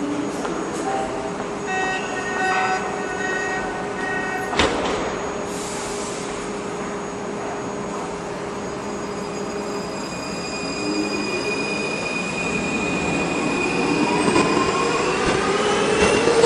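Munich U-Bahn train departing: a steady tone for a couple of seconds, a sharp knock about four and a half seconds in and a short hiss, then from about ten seconds the whine of the electric traction motors rising steadily in pitch as the train pulls away.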